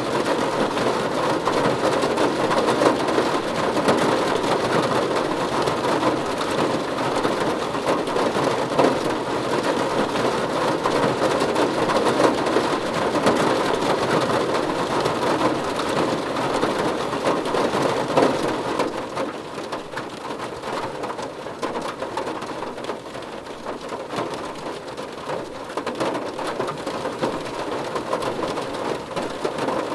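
Steady rain falling in an even hiss, easing off a little about two-thirds of the way through.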